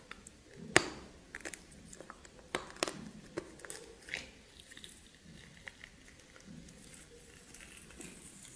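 Close-miked ASMR eating sounds of steamed snake being bitten and chewed, with sharp crunchy clicks. The loudest crunch comes about a second in and a few more come between two and three seconds, then the chewing goes on more softly.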